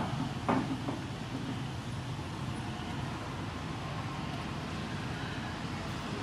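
Steady outdoor background noise with a low hum, like distant traffic, and a brief knock about half a second in.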